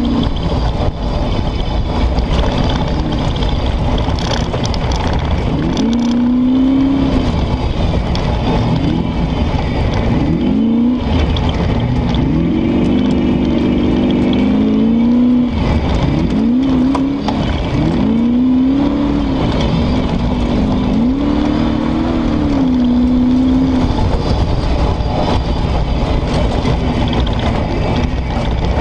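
Competition safari car's engine heard from inside the cabin while driving, with constant engine and road noise. Through the middle the engine pitch rises and falls again and again as the throttle and gears change; it runs steadier near the start and end.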